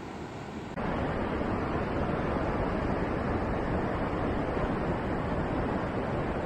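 Steady rushing of ocean surf with no distinct events, which jumps louder and fuller about a second in.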